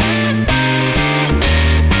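Background music: a guitar-led rock track with a steady bass line and chords changing about every half second.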